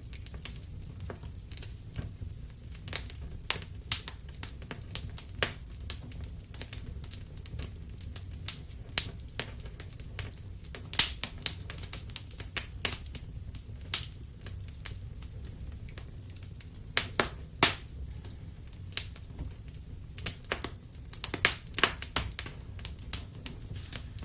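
Wood fire crackling: irregular sharp pops and snaps from the burning wood over a low steady rumble, with bursts of louder pops around the middle and again near the end.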